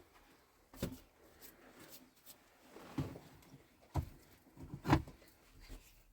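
A few separate knocks and clatters of things being handled, the loudest about five seconds in.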